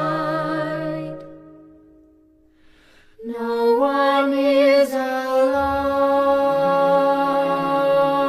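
Recorded song: a high singing voice holds a long note with vibrato that fades out about two seconds in. After a brief hush, a new sustained sung note begins about three seconds in, steps up once and holds.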